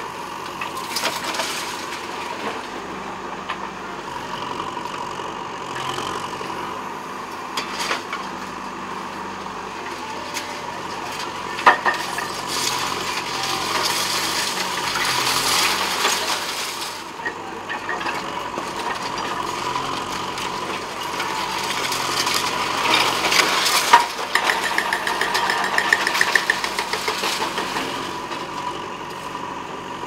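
JCB backhoe loader's diesel engine running steadily while its backhoe bucket drags and breaks up demolition rubble, with crashing and scraping of debris and a few sharp knocks, the loudest about twelve and twenty-four seconds in.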